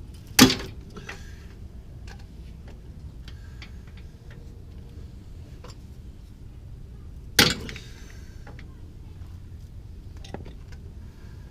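Two sharp metal clanks about seven seconds apart, with lighter clicks and taps of hand tools on steel suspension parts between them.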